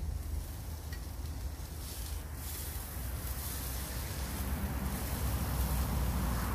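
A pork chop sizzling in a frying pan over an open fire. The sizzle grows louder near the end as the chop is turned over, and wind rumbles on the microphone.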